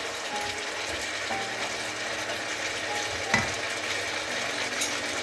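Sauce sizzling in a wok while a slotted spatula stirs it, with one sharp knock of the spatula on the pan about three seconds in and a lighter tap near the end.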